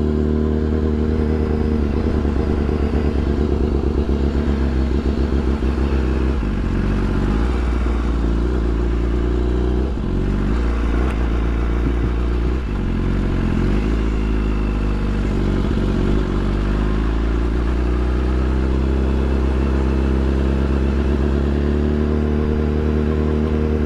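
BMW S1000RR inline-four engine running as the motorcycle cruises at low speed in traffic. Its note is steady, with several shifts in pitch midway and a slow rise and fall a little later.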